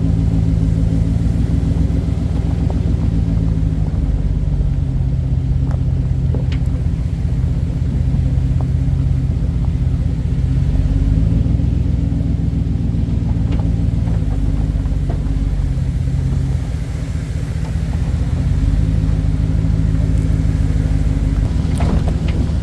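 GMC Sierra pickup's engine running at a steady pitch as the truck drives, with a few faint knocks and rattles. About two-thirds of the way in, the engine note drops and the sound dips briefly, then picks back up.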